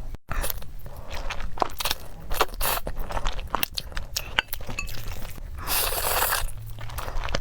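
Close-miked eating of spicy instant noodles: a quick, irregular run of crisp clicks and crunchy chewing sounds, with a longer hissing stretch about six seconds in.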